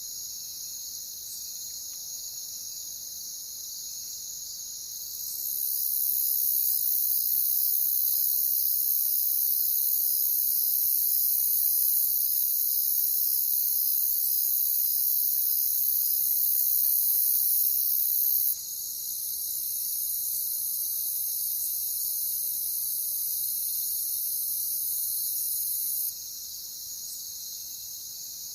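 Crickets trilling in a steady, dense chorus. A second, higher-pitched insect layer joins about five seconds in, gets quieter a little past halfway, and cuts off suddenly near the end.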